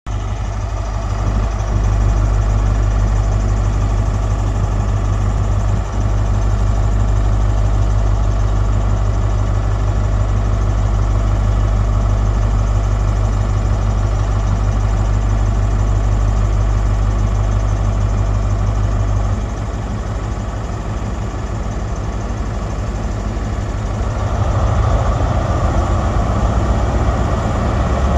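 High Speed Train (Class 43) power car's diesel engine idling with a steady low drone. About two-thirds of the way through the drone changes, and near the end the engine gets louder with a stronger mid-pitched note.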